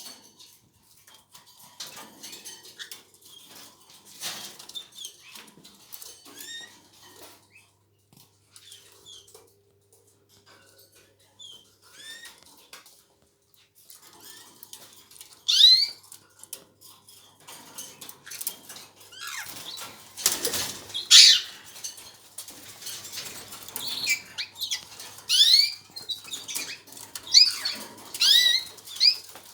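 Canaries chirping in short, sweeping calls amid wing flutters and small clicks of movement. Sparse at first, the chirps grow louder and busier about halfway through.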